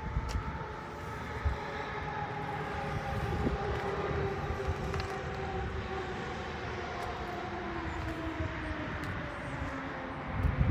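A steady engine drone with several tones that fall slowly in pitch, over a low, uneven rumble.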